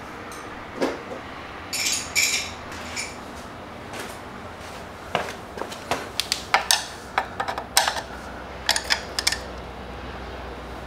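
Hand tools clinking and clicking against metal as a T40 Torx bit and a wrench are fitted and worked on the shift lever bolt. A couple of clinks come about two seconds in, then a run of irregular sharp clicks through the second half.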